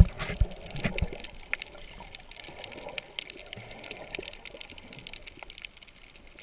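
Underwater sound from a camera held below the surface: a steady water hiss with many scattered sharp clicks and crackles, and a few low thumps in the first second or so.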